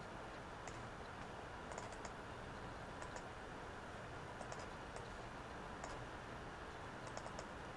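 Faint, scattered clicks of a computer mouse and keyboard, a few at a time, over a steady low hiss.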